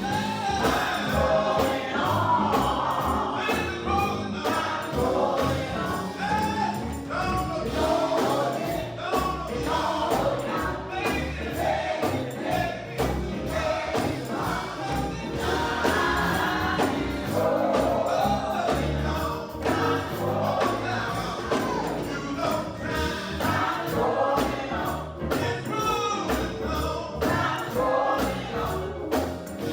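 Gospel choir singing with a lead singer over the group and instrumental accompaniment, with a tambourine shaking along.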